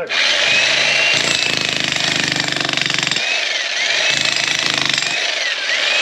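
A VEVOR 110-volt electric demolition jackhammer with a chisel bit hammering into hard rock. It starts right at the beginning and runs without stopping, with a high whine that rises and dips as the bit works.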